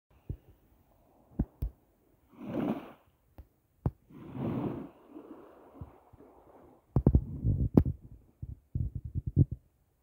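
Small waves washing softly onto the shore of a calm sea, two gentle swells of surf in the first half. In the last few seconds comes a run of irregular low thumps and knocks.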